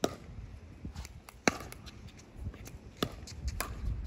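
Several sharp pops of a plastic pickleball off paddles and the hard court, the loudest right at the start and about a second and a half in, with a few more near the end, over a low wind rumble on the microphone.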